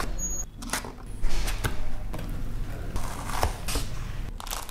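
Cardboard box being opened by hand: the tuck flap is pried out and the lid flaps folded back, making a series of short creaks, scrapes and rustles.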